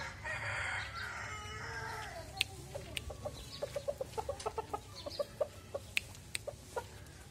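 Aseel rooster crowing once for about two seconds, the call falling at its end, then clucking in a quick run of short notes, about four or five a second. A few sharp clicks sound among them.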